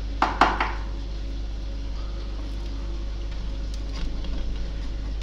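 Three quick sharp knocks in the first second, from the plastic bottle being handled against the wooden table, followed by a steady low hum with faint handling rustle.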